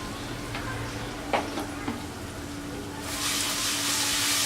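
Onion, whole cumin and garlic paste frying in hot mustard oil in a frying pan, sizzling over a steady low hum, with a single utensil knock about a second and a half in. The sizzle turns much louder and brighter about three seconds in.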